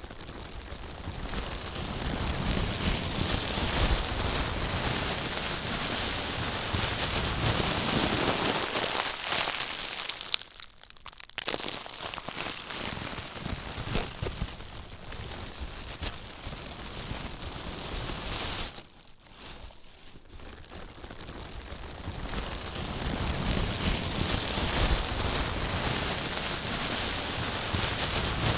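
Plastic being wrinkled and crumpled by hand, crinkling against itself in a dense, crisp crackle that eases off briefly twice, about ten and nineteen seconds in.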